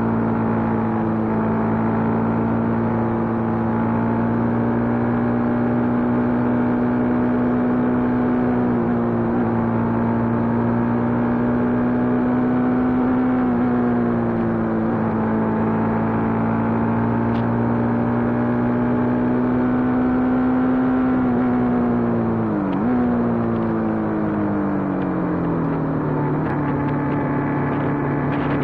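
Motorcycle engine running at steady revs, dipping briefly now and then, then easing off to a lower pitch near the end before picking up again.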